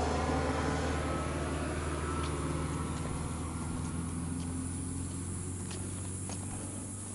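Departing aircraft's engines: a steady low drone with a few held tones, slowly fading away.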